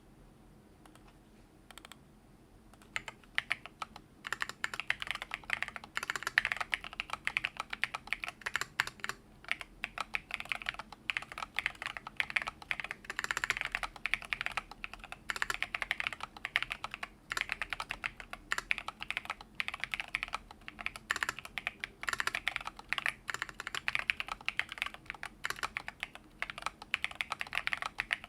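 Typing on a mechanical keyboard with lubed Holy Panda v2 tactile switches, thick MT3-profile PBT keycaps and an FR4 plate in a foam-filled case. After a quiet start with one lone click, fast continuous keystroke clacks begin about three seconds in.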